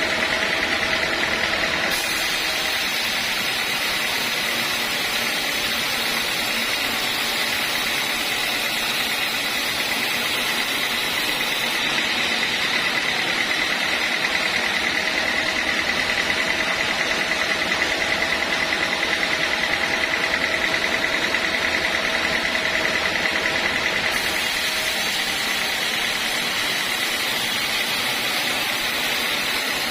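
Homemade band sawmill running and sawing a teak log: a steady machine noise with a high, even whine.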